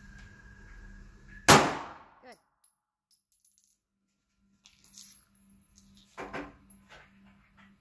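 A single 9mm pistol shot about a second and a half in, ringing briefly in the indoor range. A much fainter clank and a few light clinks follow near the end.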